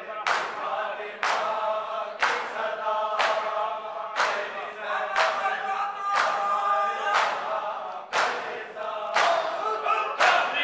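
Men chanting a noha in unison, punctuated by the crowd's chest-beating (matam): sharp, massed hand slaps landing together about once a second.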